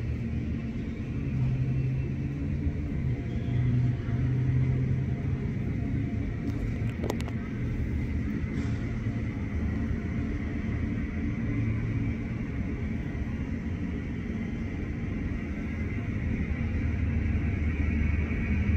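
Boeing 747's four jet engines running at taxi power: a steady low rumble with a thin high whine that grows a little stronger near the end.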